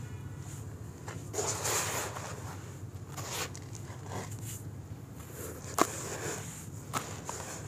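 Hands scooping and crumbling loose soil in a plastic basin: irregular gritty rustling swishes as clods break and fall. Two sharp clicks come in the last two seconds, the first the loudest sound.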